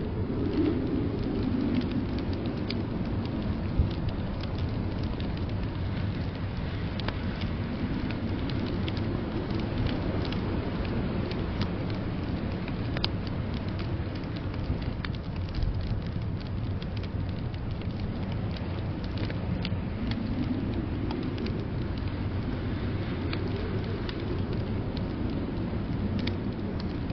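Wood fire crackling with scattered sharp pops over a steady low rush of blizzard wind that swells and fades every ten seconds or so.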